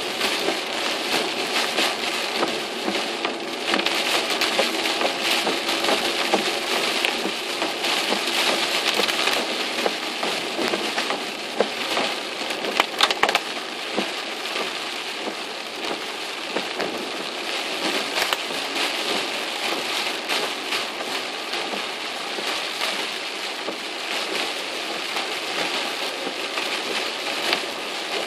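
Heavy typhoon rain hitting a car's roof and windshield, heard from inside the cabin: a dense, steady patter of countless drops, with a short run of sharper hits about twelve seconds in.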